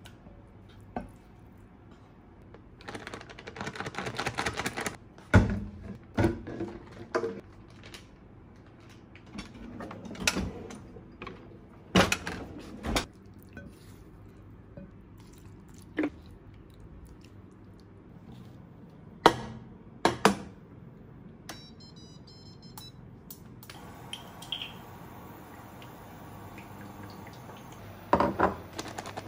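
Spoon and spatula scraping and knocking against an enamel mixing bowl while chicken pieces are tossed in a powder coating, in scattered single taps. Near the end a ceramic bowl is set down on a countertop with a couple of knocks, over a steady hiss that starts about three-quarters of the way through.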